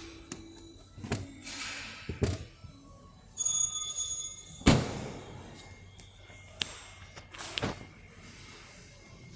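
Music from a radio with several sharp thuds and knocks; the loudest comes just under five seconds in.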